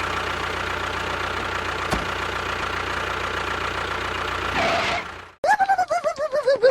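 A steady engine idling, stopping about five seconds in. A rapid string of short, chirpy tones follows, stepping down in pitch.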